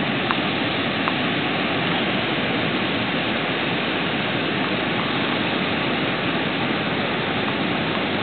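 Tidal rapids rushing steadily, a fast tidal current breaking into standing waves and whitewater through a narrow channel, running about an hour after the tide change.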